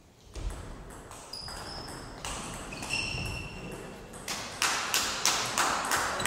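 Table tennis rally: the celluloid ball clicks off paddles and table while shoes squeak on the hardwood floor of an echoing hall. After the point ends, a run of loud sharp knocks comes at about three a second.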